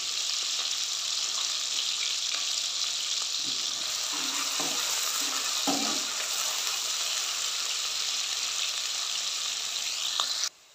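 Sliced onions sizzling steadily in hot oil as they are fried toward brown, with a spatula scraping and stirring them against the metal kadai a few times in the middle. The sizzle cuts off suddenly near the end.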